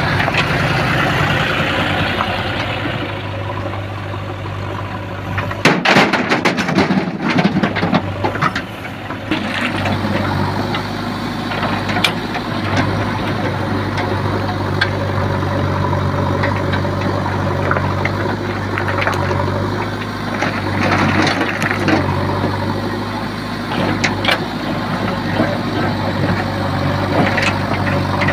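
Diesel engine of a JCB 3DX backhoe loader running with a steady low hum, its level rising and falling as it works. A burst of clattering knocks comes about six seconds in and lasts some three seconds, with a few single knocks later.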